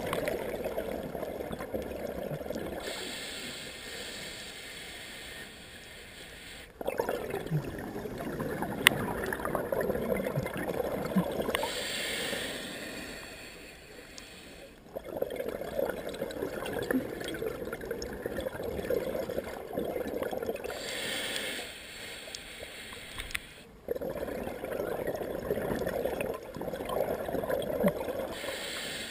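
Scuba diver breathing through a regulator underwater: each exhale is a bubbling rush of several seconds, followed by a shorter hissing inhale, repeating about every eight to nine seconds.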